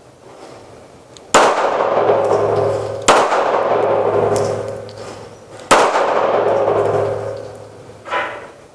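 Three pistol shots, the second about a second and a half after the first and the third about two and a half seconds later, each followed by a long echoing ring-out. A smaller, short sound comes near the end.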